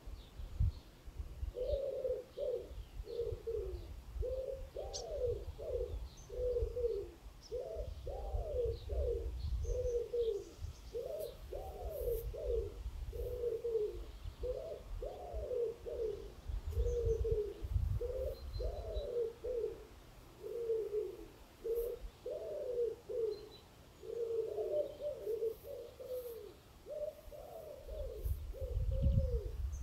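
A pigeon cooing on and on in a steady run of short rising-and-falling coos, about two a second, over a low rumble, with a few faint chirps of small birds.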